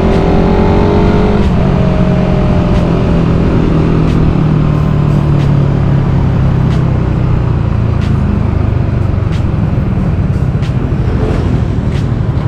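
Suzuki Raider 150 Fi's single-cylinder four-stroke engine running at cruising speed, with wind rushing over the microphone. A higher engine note fades about a second and a half in, then the engine settles into a steady hum.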